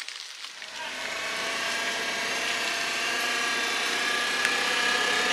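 Toyota LPG forklift running, a steady engine sound that starts about half a second in and grows louder over the next second.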